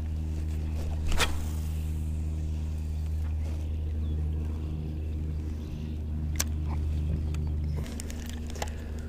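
Electric trolling motor on a jon boat running with a steady low hum, then cutting off near the end. A few light clicks sound over it.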